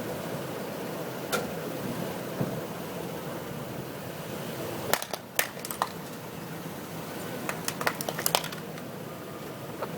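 A truck's tyres rolling over a plastic smoke detector: a steady hum from the truck, with sharp cracks and crunches of breaking plastic in two clusters, about five seconds in and again about eight seconds in.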